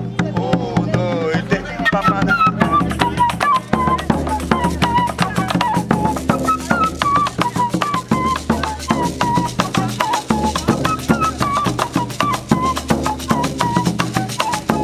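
Pífano (wooden fife) playing a repeating, ornamented melody over an alfaia bass drum struck with sticks and a hand drum, all keeping a fast, steady rhythm.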